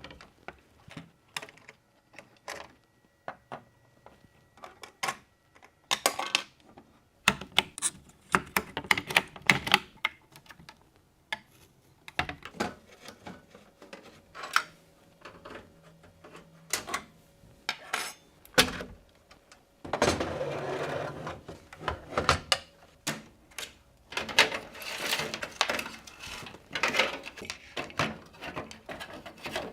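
Irregular clicks, taps and clatter of hard computer parts being handled and fitted together during a PC build, with denser rattling stretches in the second half.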